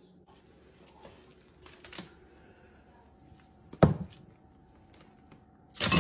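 A few faint ticks of cling film being handled, then a sharp knock about four seconds in as the bowl is set down on the wooden floor. Near the end comes a loud crinkling of plastic wrap as a dog pushes its muzzle into the wrapped food bowl.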